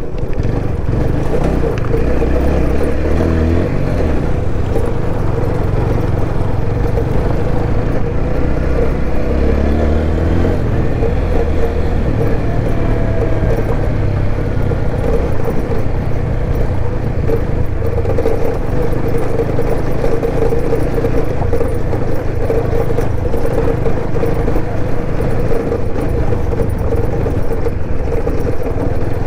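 TVS Apache RTR 160 4V's single-cylinder engine running under way at low speed, with a bassy exhaust note. The revs rise and fall a little about a third of the way in.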